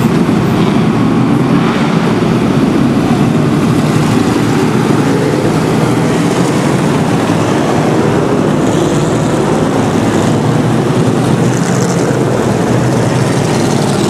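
Field of street stock race cars running together on the track, their engines a loud, steady, unbroken noise as the pack goes by.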